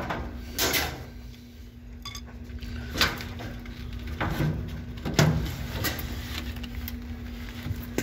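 A cardboard-framed 16x25 pleated furnace air filter being slid out of its sheet-metal slot, scraping and knocking against the metal in a handful of sharp clicks and rubs, over a steady low hum.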